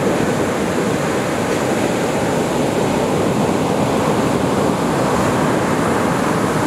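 Ocean surf breaking and washing over the shallows, a steady rushing roar of white-water.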